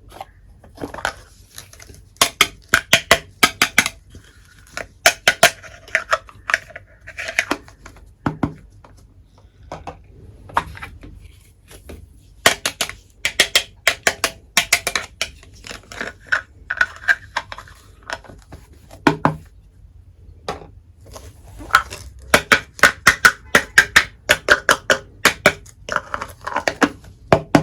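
Miniature toy kitchenware pieces clicking and clinking as they are handled, in quick runs of sharp taps, some of them ringing briefly.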